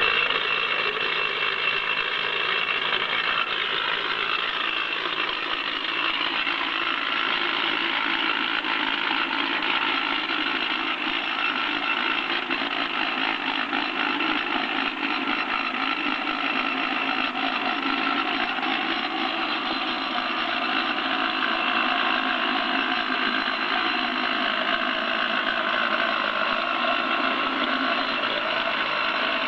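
Hand-held rock drill (Dangshan YYTZ28-2) running steadily without letup, a dense mechanical racket with no pauses.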